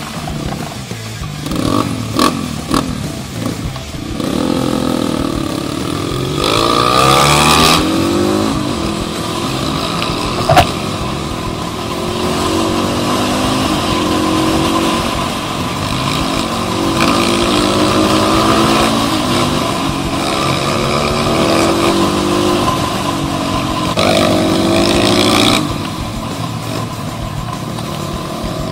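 Crossfire CX250R dirt bike engine revving as it is ridden, its pitch rising and falling repeatedly through the throttle and gear changes. There is a sharp click about ten seconds in.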